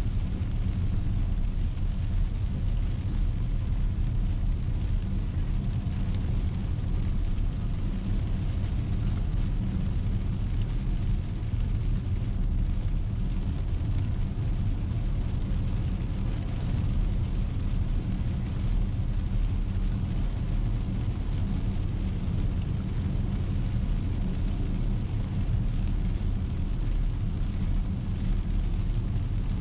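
Car cabin road noise while driving on a wet road: a steady low rumble of engine and tyres with an even hiss from the tyres on wet pavement.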